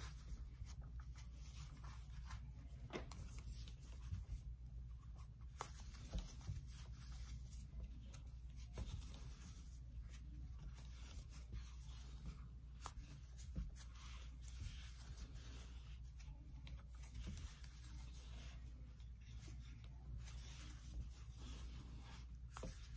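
Faint rustling and rubbing of thick ribbon yarn drawn through stitches by a crochet hook, with scattered light clicks, as rows of double crochet are worked.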